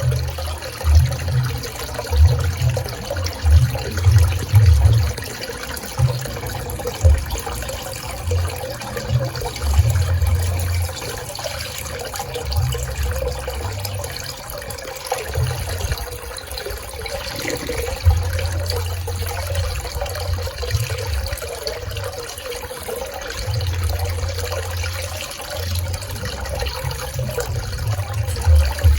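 Swimming-pool water flowing and splashing steadily, with irregular low rumbles coming and going underneath.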